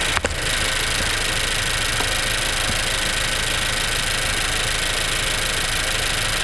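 2016 Honda Civic engine idling steadily about a minute after a cold start, with a single click shortly after it begins. The owner feels the engine is not running smoothly and suspects a faulty VTC actuator.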